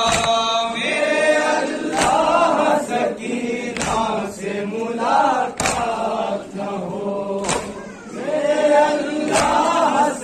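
Crowd of men chanting a noha (mourning lament) in unison, marked by sharp unison chest-beating slaps (matam) about every two seconds.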